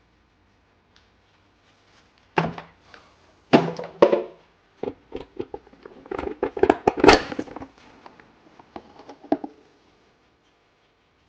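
Hard plastic intake parts knocking and rattling as the stock air box is worked loose and lifted out of the engine bay: a string of irregular clunks and clatters, loudest in the middle.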